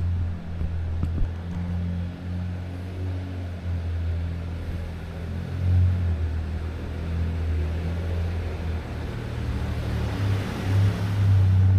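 Motor vehicle engine running with a steady low hum, growing louder about ten seconds in.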